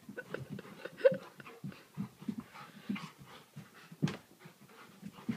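Two large dogs play-wrestling without barking: panting and scuffling, with paws and bodies shuffling on the rug. There is a short whimper about a second in and a sharp knock about four seconds in.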